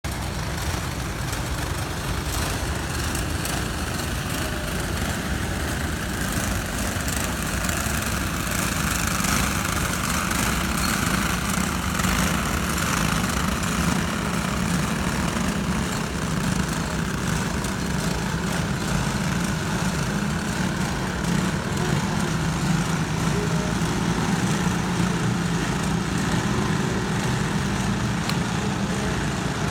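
Small go-kart engines running steadily, with a low hum that grows stronger about halfway through.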